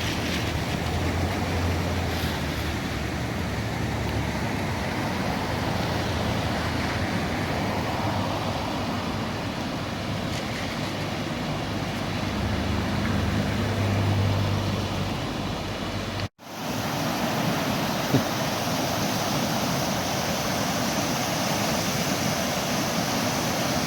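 A car driving along, a steady run of engine and road noise. After a sudden cut about 16 seconds in, it gives way to the even, steady rush of a flood-swollen river running in rapids.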